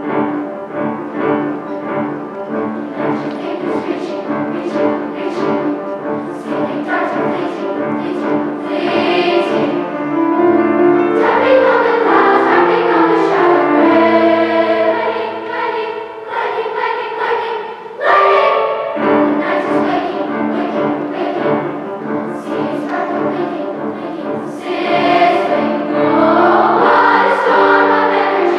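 A large children's choir singing a song in several parts, with held notes. It swells louder about eleven seconds in and again near the end, with a brief softer passage between.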